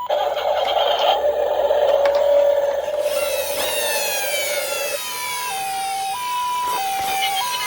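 Emergency-vehicle siren sounds from toy minicars. A steady whirring noise fills the first few seconds. Rising wailing siren sweeps start about three seconds in, and about two-thirds through a two-tone hi-lo ambulance siren sets in, switching pitch roughly every two-thirds of a second.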